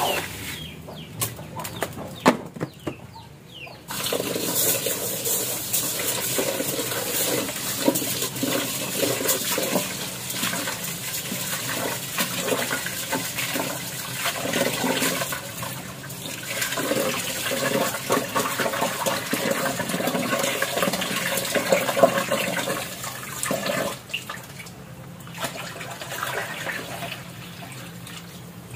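Water from a tap running into a metal pot as uncooked rice is washed in it by hand. The rushing starts suddenly about four seconds in and stops again near the end. Chickens cluck in the background.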